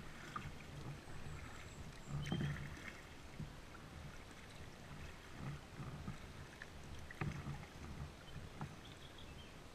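Kayak being paddled: repeated paddle strokes dipping and splashing in the water, with a few sharp knocks, the loudest about two and seven seconds in.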